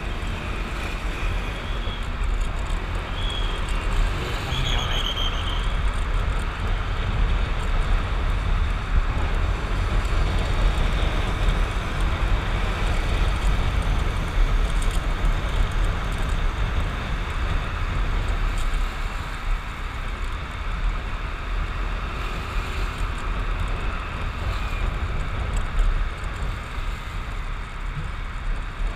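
Motorcycle riding in city traffic: steady wind rush and road noise over the bike's engine, with the strongest part a low rumble.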